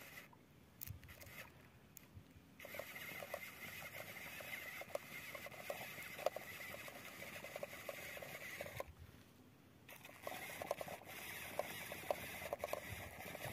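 Small electric motor and gears of a toy model tractor whirring, with scattered clicks and crackles of wheels and tyres on dirt. It cuts out briefly twice.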